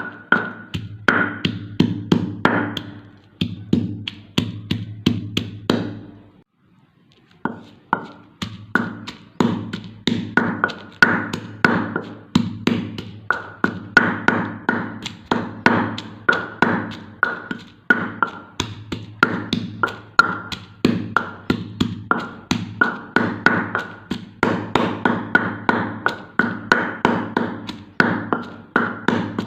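Knife chopping on a wooden cutting board: quick, even taps about three to four a second, pausing briefly about seven seconds in and then carrying on.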